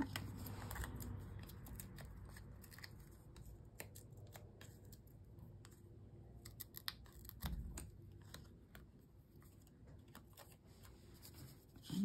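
Small pieces of card stock being handled and pressed down on a wooden tabletop: faint paper rustles with scattered light clicks and ticks, and a soft bump about seven and a half seconds in.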